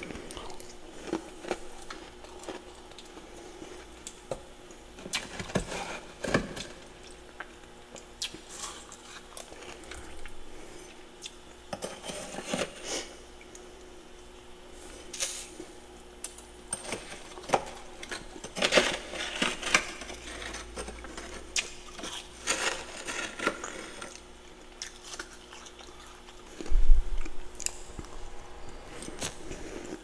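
A metal spoon scrapes and clinks against packed freezer frost, with scattered crunching and chewing as the frost is eaten, over a faint steady hum. There is a low thump near the end.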